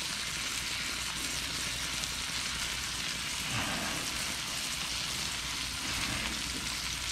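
Chicken breasts frying in oil in a pan, a steady sizzling hiss.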